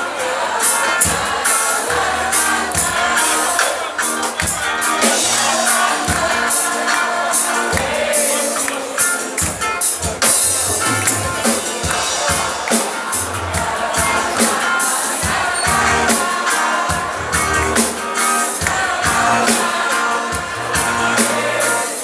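Live rock band playing with electric and acoustic guitars, bass and drums to a steady beat, with singing over it.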